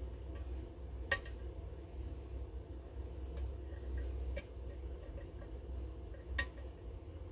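Small, sharp metallic clicks of a lock pick working the pins of a Goal GCY-79 pin tumbler lock, scattered and irregular. The two loudest come about a second in and near the end, over a low steady hum.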